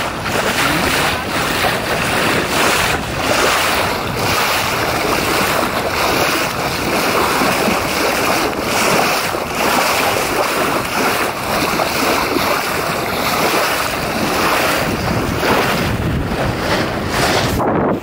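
Water rushing and splashing along the hull of a Yamaha 25 sailboat moving fast under sail, with wind buffeting the microphone.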